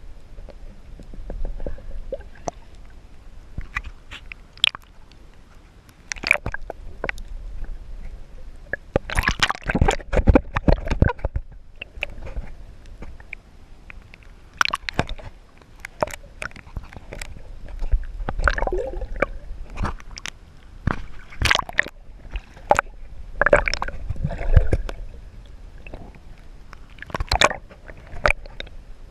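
Water sloshing and splashing against a kayak's hull, with scattered knocks and clicks and several louder bursts of splashing.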